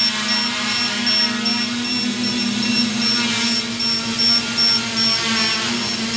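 AeroBerry quadcopter's electric motors and propellers buzzing steadily as it hovers, the pitch wavering slightly as it holds position. A high thin beep repeats a little over twice a second throughout.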